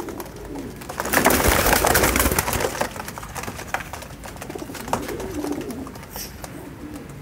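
Caged domestic Rampuri pigeons cooing, with low wavering coos about five seconds in. A louder burst of rustling and clicking noise lasts about a second and a half, starting about a second in.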